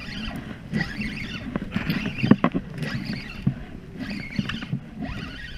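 Choppy water slapping and splashing against a small boat's hull in heavy swells, with irregular knocks and clicks and wind rumbling on the microphone.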